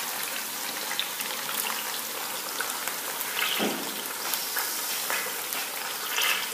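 Chicken, onion and chickpeas sizzling in oil in a steel pot over a gas burner: a steady crackling hiss with small pops, and one soft knock a little past halfway.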